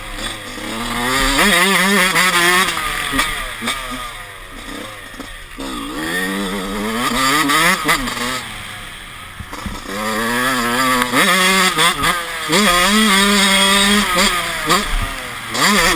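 Honda CR 125 two-stroke motocross engine, with a '91 Mugen cylinder and an FMF Fatty exhaust, heard from the rider's helmet under hard riding: the revs climb and fall again and again as the throttle is opened and shut. The rider says its carburetion is not yet set right.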